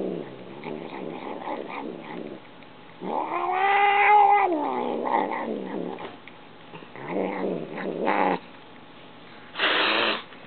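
Persian-mix cat growling and yowling in drawn-out bouts as she eats while being petted, the grumpy protest of a cat touched at her food bowl. The longest call, about three seconds in, rises and then falls in pitch; a short harsh burst comes near the end.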